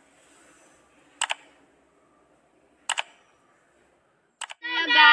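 Click sound effects of a subscribe-button animation: three short, sharp double clicks about a second and a half apart. Near the end, children's voices start singing.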